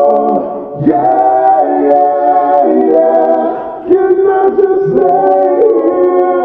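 A song with held, layered singing, briefly dipping between phrases twice.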